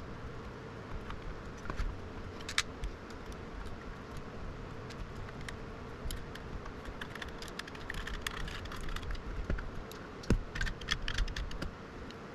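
Typing on a computer keyboard: scattered key clicks that come in quick bunches in the second half, over a steady low hum.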